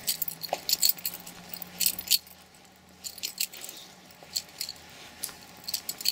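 Small metal items jingling in quick, irregular clinks while someone walks, with a faint steady low hum in the first half.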